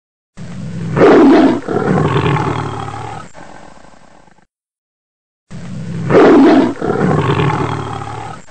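A big cat roaring: the same roar is heard twice, about five seconds apart. Each starts with a loud call and fades out over about three seconds, with dead silence in between, as from a repeated roar clip.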